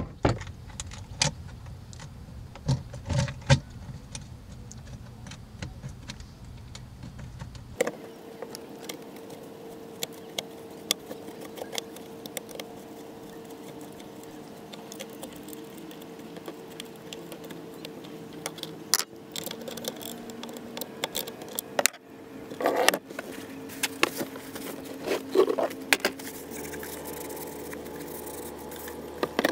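Scattered metal clicks, clinks and rattles of hand tools and parts as a 2003 Mercury 3.3 hp two-stroke outboard is being reassembled. A faint steady hum runs in the background from about eight seconds in.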